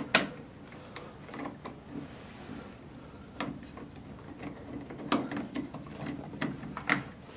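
Phillips screwdriver turning a screw out of the plastic handle insert on a Moen single-handle shower valve: irregular small clicks and scrapes of metal on the screw head and plastic.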